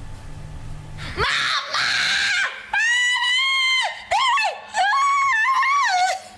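A person screaming: a string of long, very high-pitched shrieks, each held for about a second and gliding in pitch, starting about a second in.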